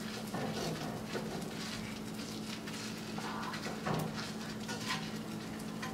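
Cheese sandwich toasting in a hot nonstick pan on low heat: a steady sizzle with small crackles, over a steady low hum, and a sharper tap about four seconds in.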